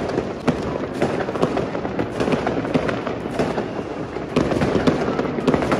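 Many fireworks going off together: a dense, unbroken crackle of overlapping bangs and pops, with a few sharper bangs standing out and the barrage thickening in the second half.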